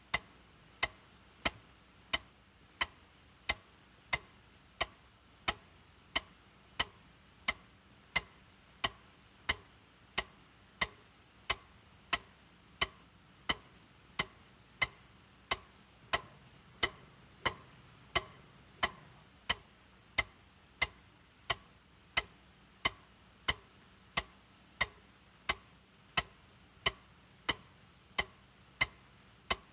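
Clock ticking steadily, about three ticks every two seconds.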